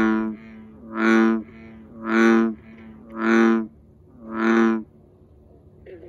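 Male American bullfrog giving its bellowing call: five deep, drawn-out notes about a second apart, with fainter calls between them.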